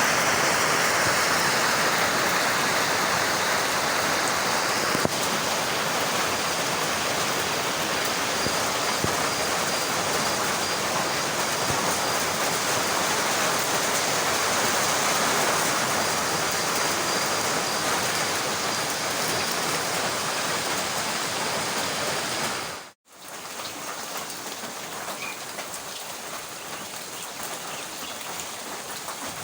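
Heavy rain falling steadily. About two-thirds of the way through it cuts out for an instant and comes back as quieter rain with separate drops pattering.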